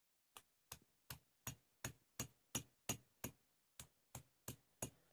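Hand-held grinding stone of a sil-batta pounding raw mango pieces on the flat stone slab: soft, evenly spaced knocks about three times a second.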